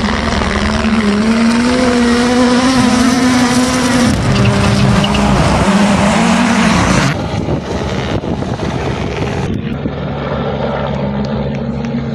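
Rally car engine revving hard, its pitch rising and falling repeatedly as it works through the gears. About seven seconds in it cuts to a duller, steadier drone.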